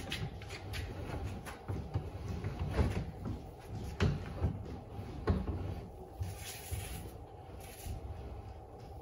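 Irregular wooden knocks and clicks with rubbing as yellow electrical cable is pulled through holes in wooden wall studs, with a short scraping drag about six seconds in.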